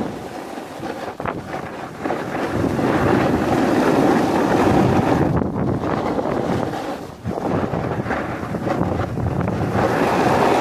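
Wind rushing over the camera microphone mixed with a snowboard's base and edges hissing over groomed snow during a downhill ride. The rush swells and dips, with brief drops about a second in and about seven seconds in.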